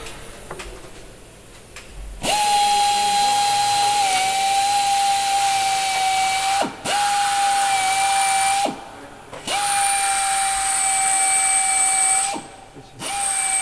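Pneumatic air drill running in four bursts of a few seconds each, a steady high whine with air hiss, its pitch sagging as the trigger is released between bursts. It is drilling into the aircraft's fuselage structure.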